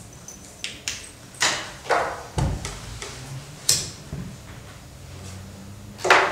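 Cigarettes being lit and smoked: a few sharp clicks and short rasping strikes over the first few seconds, then a louder hiss near the end.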